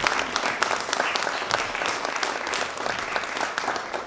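Audience applauding, many hands clapping at once, easing off slightly toward the end.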